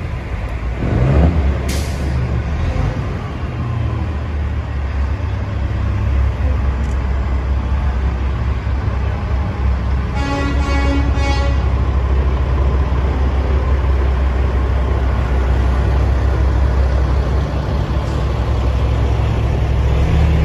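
Diesel semi trucks rumbling as they pass slowly, with a short hiss of air about two seconds in. About halfway through, a truck air horn sounds for a second and a half.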